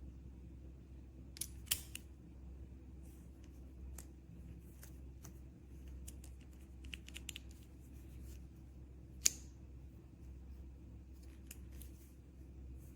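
A small combination padlock being handled: scattered light metallic clicks and taps, sharpest about two seconds in and again about nine seconds in, over a steady low hum.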